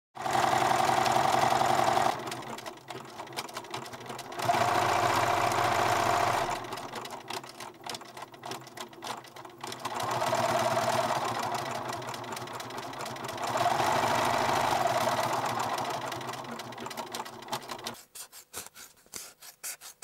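Electric sewing machine stitching in four runs of about two seconds each, its motor humming more quietly in between. It stops near the end, leaving a few faint clicks and rustles.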